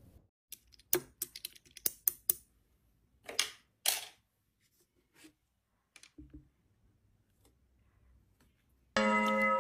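Slime being handled by hand, including clear slime mixed with pearl beads: a quick run of sticky clicks and pops, then two longer squelches about three to four seconds in, and a few faint clicks after. Near the end a chime-like musical tone starts.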